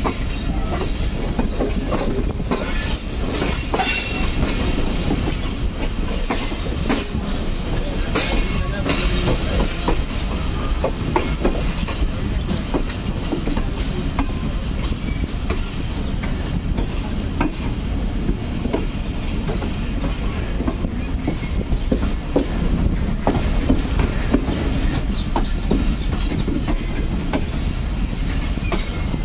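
Train running along the track: a steady rumble with irregular clicks as the wheels pass over rail joints, and a short high squeal about four seconds in.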